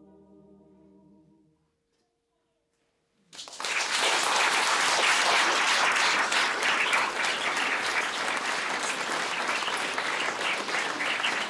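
A small mixed choir's last chord, sung without accompaniment, is held and dies away in the first second and a half. After about two seconds of silence, an audience breaks into loud, steady applause.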